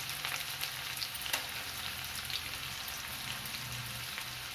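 Chopped onion and ginger sizzling in hot oil in a kadhai, a steady frying hiss dotted with small crackling pops.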